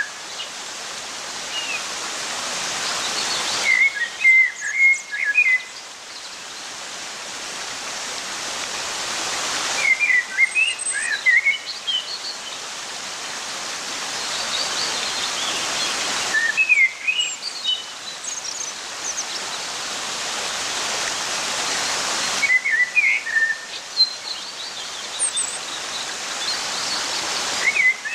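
Birds chirping in short flurries over a hiss that slowly builds and then cuts off suddenly. The same pattern repeats about every six seconds.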